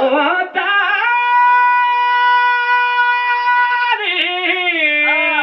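A man's voice chanting an Urdu qasida, rising into one long high note held steady for about three seconds, then falling back into wavering, ornamented phrases.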